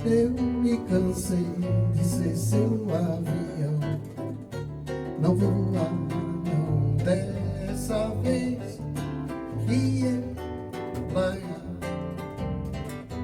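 Music: nylon-string acoustic guitar and eight-string guitar playing an instrumental passage with a plucked bass line.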